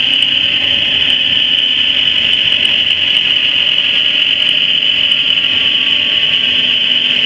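Drivetrain whine from a 2013 GMC Terrain, heard while driving through an electronic Chassis Ears sensor clamped at the transfer case: a loud, steady high-pitched whine over a lower hum. The mechanic traces this whining, roaring noise to a worn-out transfer case.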